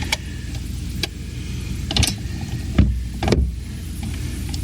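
Hand tools working on a car's front brake caliper bolts: a handful of short, sharp clicks and knocks spaced about a second apart, over a steady low rumble.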